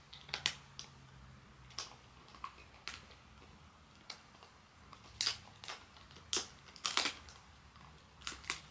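Miniature schnauzer chewing in its dog bed: irregular sharp clicks and cracks, a few louder ones around the middle and again near the end.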